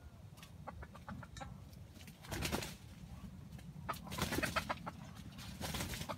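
Junglefowl rooster clucking in short bursts: one group about two seconds in, a quick run of clucks about four seconds in, and another group near the end.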